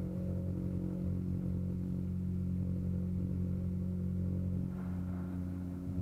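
Outboard motor of a river boat running steadily at constant speed, a low drone that holds one pitch.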